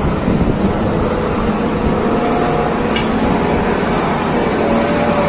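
Intercity bus engine running close by, a steady low rumble.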